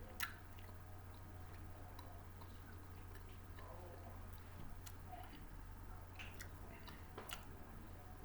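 A person chewing snacks, faint, with scattered small clicks and one sharp click just after the start, over a steady low hum.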